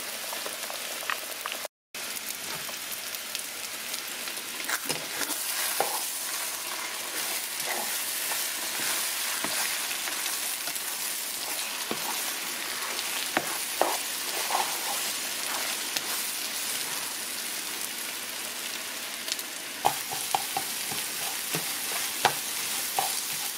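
Beaten egg sizzling steadily in a hot frying pan beside diced potatoes, ham and broccoli leaves, with scattered scrapes and taps of a plastic spatula as the egg is broken up and scrambled. The sound cuts out briefly about two seconds in.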